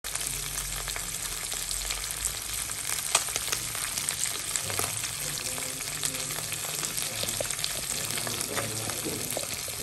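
Small whole fish frying in hot oil in a pan: a steady sizzle with scattered crackles and pops, one sharper pop about three seconds in.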